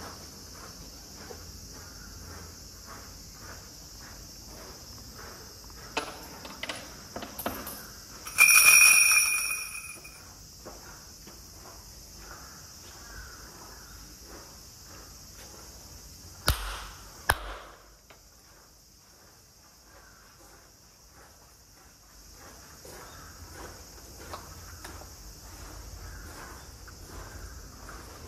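A few light clicks, then the shrine bell is rung by its rope, ringing for about a second. Some seconds later come two sharp hand claps. Cicadas drone steadily throughout.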